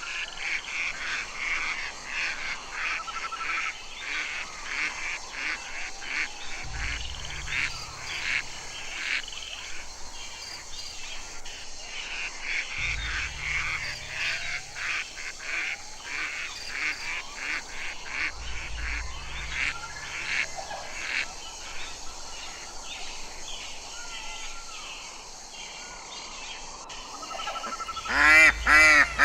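A flock of ducks calling: many short overlapping calls in rapid succession, with a low rumble every few seconds. Near the end, loud harsh quacks start up.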